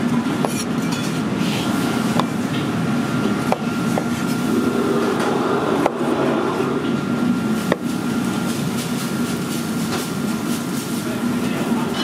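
Chinese cleaver knocking on a bamboo cutting board as it cuts a red bell pepper, a handful of separate knocks a second or two apart, over a steady low mechanical rumble.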